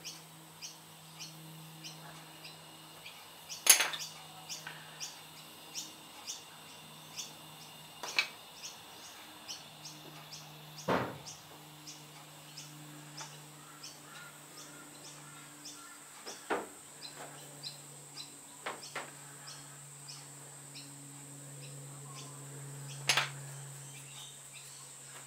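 Small clicks and taps of hands working filler and a pencil into a wooden lure body on a workbench, with about half a dozen sharper clicks spread through. Under them runs a steady low hum and faint high chirping repeating a few times a second.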